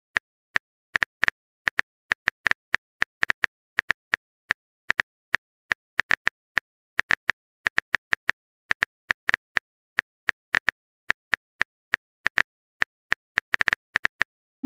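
Phone keyboard tap-click sound effect as a text message is typed out: short, sharp clicks at an uneven pace of about three to four a second, with silence between them.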